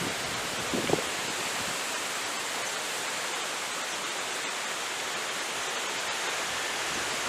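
Heavy rain from a thunderstorm falling steadily, an even hiss with a brief louder moment about a second in.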